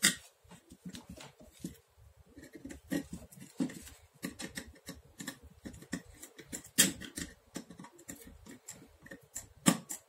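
Irregular small clicks, taps and rattles of wires and a plastic dimmer switch being handled while wires are fitted into its terminals, with sharper clicks about seven seconds in and near the end.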